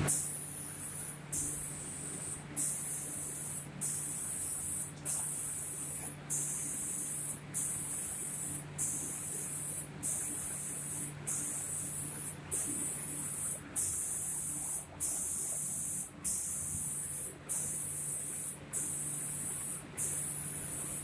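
Automatic paint spraying machine's spray guns hissing, cutting out briefly in an even rhythm about every second and a quarter, over a steady low machine hum.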